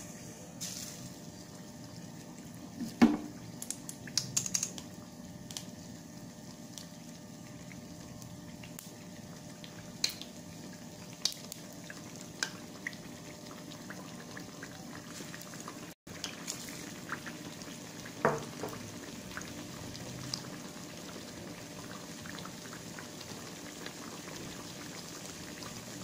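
Batter-dipped raw banana slices deep-frying in hot oil in a metal kadai: a steady sizzle, broken by a few sharp clicks and pops, the loudest about three seconds in and again about eighteen seconds in.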